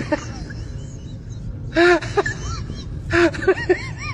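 Short voiced calls, each rising and falling in pitch, in two bursts about a second and a half apart, over a steady low rumble.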